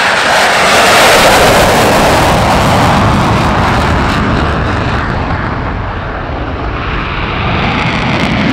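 F-16 Fighting Falcon's single jet engine in afterburner, loud as the jet passes and climbs away. It is loudest about a second in, fades over the following seconds, then builds again near the end.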